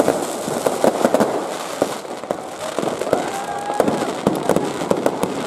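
Fireworks bursting overhead: several sharp bangs a second, irregular and overlapping, over a continuous crackle of aerial shells and firecrackers. A short whistling tone comes through near the middle.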